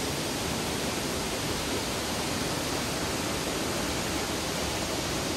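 Sera Ella waterfall: a steady rush of water falling over a rock ledge into its plunge pool.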